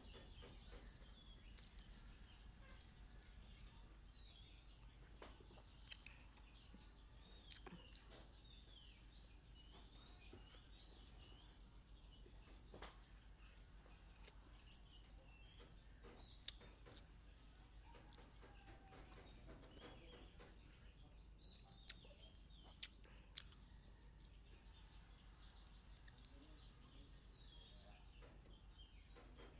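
Near silence with faint outdoor ambience: a steady high insect drone, faint bird chirps, and a few sharp clicks, including three close together about 22 to 23 seconds in.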